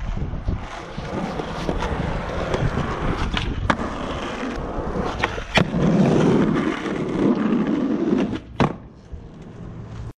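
Skateboard wheels rolling over pavement, a continuous rumble that is loudest as the board passes close by about six to eight seconds in. A few sharp clacks sound along the way, the last near the end, after which the rolling is quieter.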